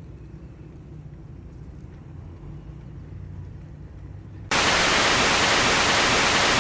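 A car engine running with a low, steady rumble, then loud hissing static cuts in abruptly about four and a half seconds in and drowns everything out.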